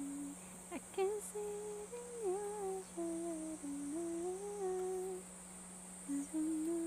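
A woman humming a tune, a run of held and gliding notes that breaks off for about a second near the end and then starts again.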